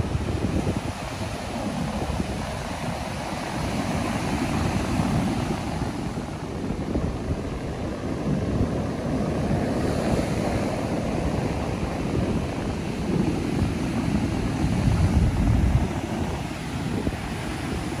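Ocean surf breaking and washing up a sandy beach, a continuous rushing wash that swells louder near the end, with wind buffeting the microphone.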